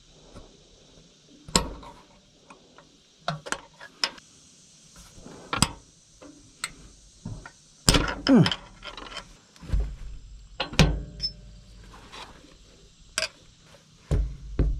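Irregular metallic clinks and knocks, about a dozen, of tools and parts being worked on a Massey Ferguson 135 tractor's drive coupling (shear tube), with a short scrape about eight seconds in.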